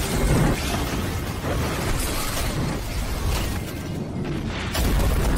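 Animated sound effects of rock crumbling and debris crashing, with a heavy low rumble that eases off and then swells again near the end.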